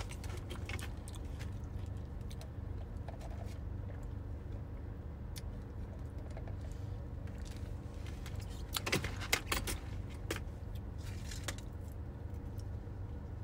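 Steady low hum of a parked car with its engine running, heard from inside the cabin. A cluster of sharp clicks and rattles comes about nine seconds in, with a few more around eleven seconds.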